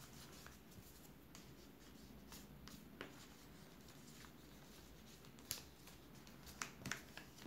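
Faint sounds of a paper sheet being handled and creased on a table, with a few light clicks and taps, most of them near the end.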